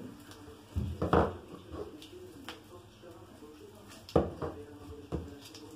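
Rustling of fir and thuja branches being handled on a tabletop, with a few sudden knocks: one about a second in and two more around four to five seconds.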